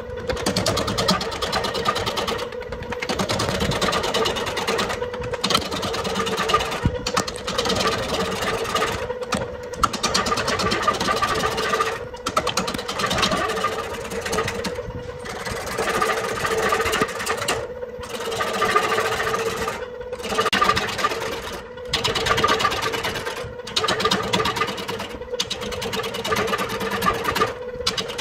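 Wood lathe running with a steady motor hum while a turning tool cuts the spinning wood, a hissing cutting noise that breaks off briefly every two or three seconds between passes.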